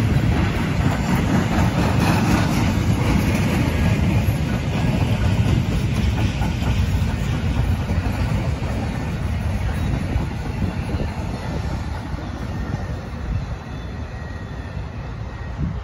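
Canadian Pacific freight train of flatcars rolling past, steel wheels running on the rails, the sound growing gradually fainter as the end of the train moves away.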